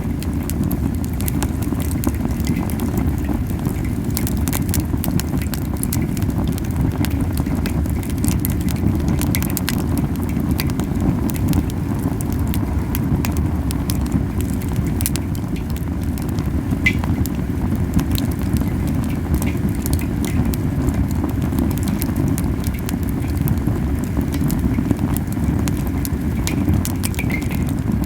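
Campfire of camellia wood burning hard, with a steady low puffing rumble of the flames and many sharp pops and crackles from the wood. The strong puffing comes from the fire burning too hot.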